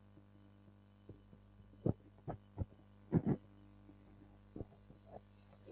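Steady low electrical mains hum with a handful of short soft thumps scattered through the middle, the loudest pair about three seconds in.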